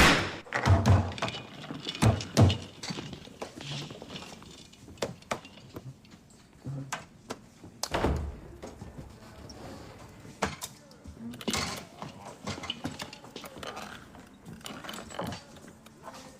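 A series of dull thuds and knocks: several loud ones in the first three seconds, another loud one about eight seconds in, and smaller scattered knocks between.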